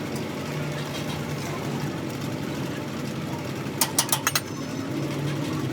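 Engine idling steadily, with a quick run of about five sharp clicks or taps about four seconds in.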